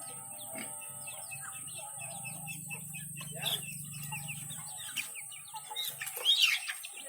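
Village chickens clucking with many short high calls, and one louder call about six seconds in.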